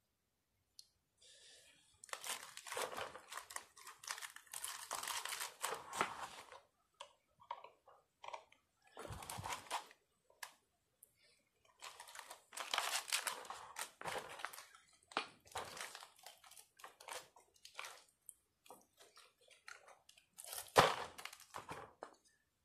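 Thin aluminium radiator fins crunching and crinkling by hand in irregular bursts, with sharp clicks between, as copper tubes are worked out of an aluminium-copper heater core. The loudest crunch comes near the end.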